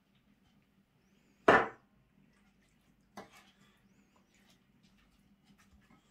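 Wooden spoon stirring shrimp and tomatoes in a stainless-steel pan, with small scrapes and clicks, one sharp knock about a second and a half in and a softer one about three seconds in, over a faint steady hum.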